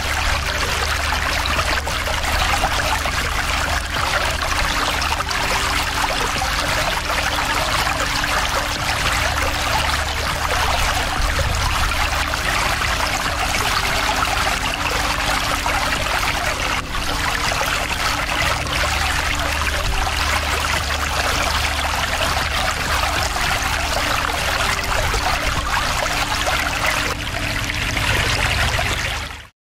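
Steady rushing outdoor noise with a low rumble underneath, which cuts off abruptly near the end.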